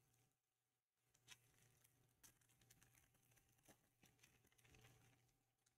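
Near silence, with faint scattered clicks and crinkles from a foil trading-card pack being torn open and handled between about one and five seconds in.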